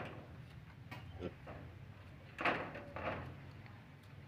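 A few short scraping strokes of a knife paring a vegetable over an aluminium pot, the two strongest a little past the middle.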